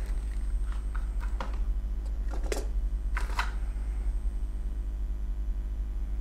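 A few short clicks and rustles of hands handling a smartphone in the first three and a half seconds, the loudest two about a second apart, over a steady low hum.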